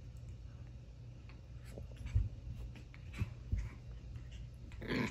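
Soft scratching and rustling of paws on a plush bedspread as a chihuahua puppy paws at a cat, with a few soft thumps and a short burst of noise near the end, over a low steady hum.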